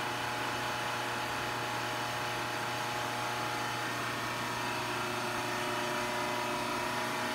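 A steady machine hum with several held tones, unchanging throughout.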